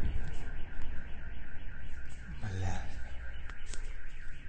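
Car alarm sounding continuously outside, a fast repeating warble. A brief voice is heard about halfway through, and a couple of sharp clicks come near the end.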